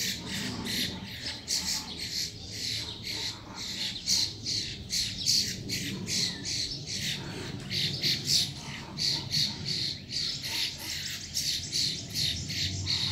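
Two birds fighting, giving short harsh squawks over and over, about three or four a second, with no let-up.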